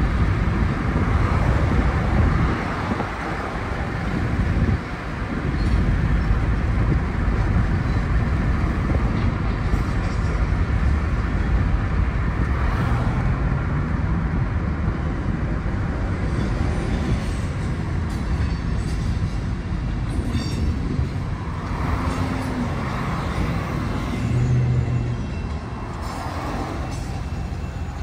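Road noise heard from inside a moving car: steady tyre and traffic noise with a low rumble, a little quieter near the end.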